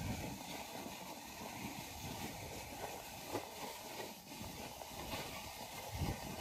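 Homemade wheeled push snow plow being shoved along a snowy road: the blade scraping through packed snow and the small rubber wheels rolling, a steady rough rumble with a few knocks along the way.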